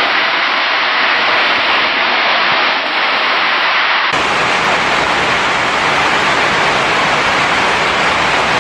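Loud, steady rush of floodwater, with no distinct tones or knocks. About four seconds in the sound changes abruptly to a fuller, deeper rush.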